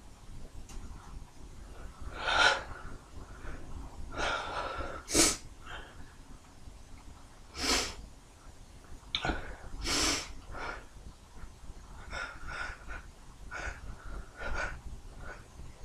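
A man's stifled sneezes: a dozen or so short bursts held back in quick succession, the sharpest about two, five, eight and ten seconds in.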